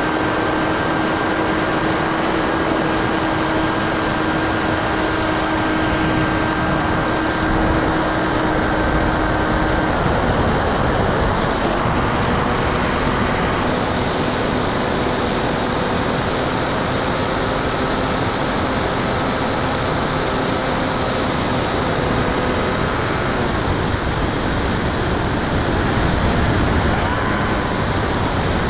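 Steady rush of wind over the onboard camera of a Bixler 2 RC plane in flight, with the faint hum of its NTM 1400kv brushless motor driving a 9x6 pusher propeller. The motor's pitch changes about ten seconds in and fades out a little after the middle.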